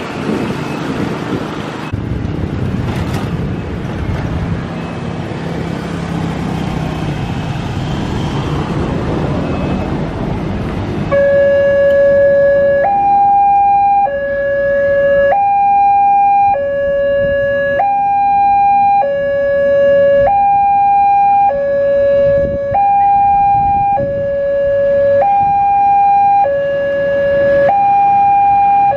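Road traffic passing a railway level crossing, then about eleven seconds in the crossing's loudspeaker warning starts: a loud electronic two-tone alarm alternating between a lower and a higher note, each held a little over a second. It signals an approaching train as the barriers are lowered.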